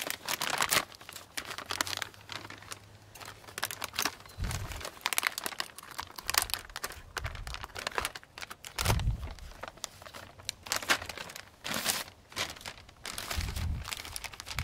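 Potato chip bag crinkling and crackling as it is handled and cut open along its seam with scissors.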